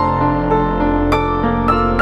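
Background music: soft piano and keyboard with sustained chords and a few struck notes.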